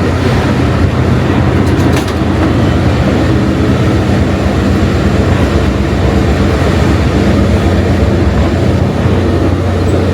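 Loud, steady rumble of a moving train heard from aboard one of its cars, with a few brief clicks about two seconds in.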